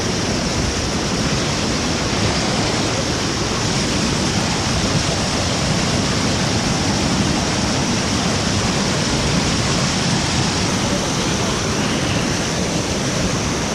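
Whitewater rapids rushing through and under a logjam: a loud, steady wash of churning river water with no let-up.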